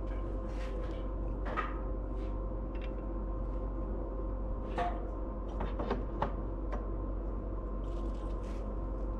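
Light metallic clicks and taps of the billet aluminium oil catch can and its mounting bracket and bolt being handled and fitted together by hand. The clicks come singly at first and then in a cluster of several around the middle, over a steady low hum.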